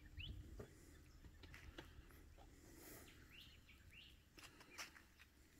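Near silence, with a few faint, short bird chirps.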